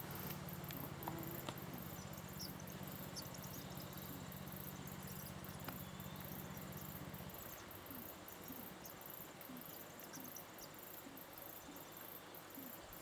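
Faint outdoor ambience of insects, likely crickets, chirping in short high bursts. A low steady hum runs underneath and stops about seven seconds in.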